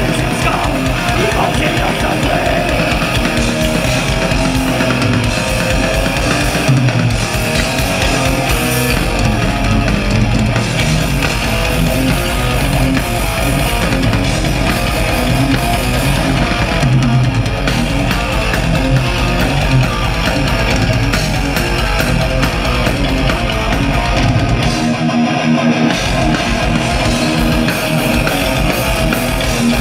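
Thrash metal band playing live through a PA: heavily distorted electric guitars, bass and a fast drum kit, loud and dense. The low end drops out for about a second near the end before the full band comes back in.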